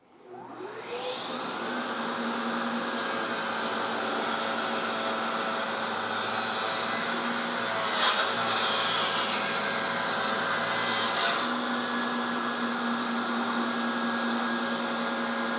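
Festool CSC SYS 50 cordless table saw spinning up over about two seconds, then ripping 8/4 walnut in one pass with the blade near full height. The whine dips only briefly in pitch as the blade takes the cut about eight seconds in; the motor does not bog down, and the saw then runs on steadily.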